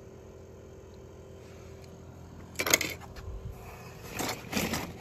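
Low steady room hum, then a sharp clack about two and a half seconds in and a few shorter rattling handling noises as small toy cars are picked up and moved.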